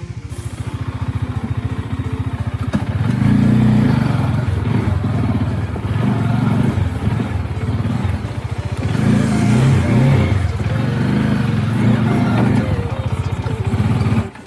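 Motorcycle engine working under load on a steep off-road climb. It pulses fast and fairly evenly for the first few seconds, then gets louder about three seconds in, its revs surging up and down as the rider works the throttle.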